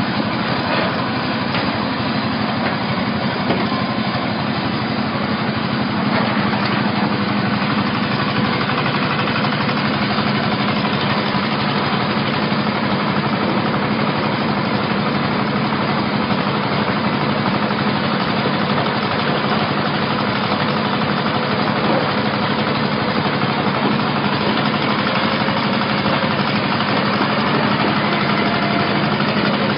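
Engine of a heavy stone-loading forklift running steadily at a low, even speed, with a constant hum.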